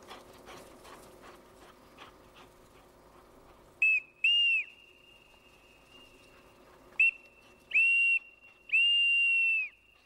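Handler's dog-training whistle blown to command a gun dog quartering a field. It gives two short blasts about four seconds in, then three more from about seven seconds, the last one long. Each blast holds one high pitch and sags as it cuts off.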